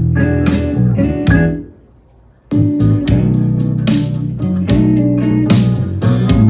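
Music with guitar and strong bass played through a speaker under test. It drops out about a second and a half in and comes back under a second later.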